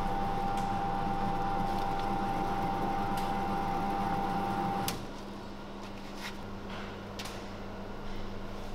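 Commercial electric meat grinder running steadily, a motor hum with a steady whine, which stops abruptly about five seconds in, leaving a fainter background hum and a few light clicks.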